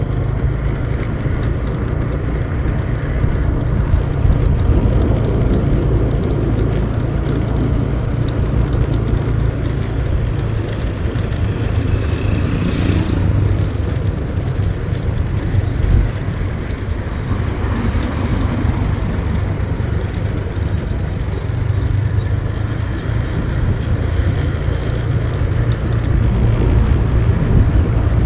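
Motorbike riding along a mountain road: steady engine and road noise with a low rumble. A brief higher-pitched sound about halfway through, and a single bump a little after.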